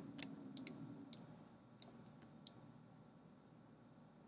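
Faint, light clicks from a computer mouse, about seven in the first two and a half seconds, irregularly spaced, as a drawn structure is selected and dragged.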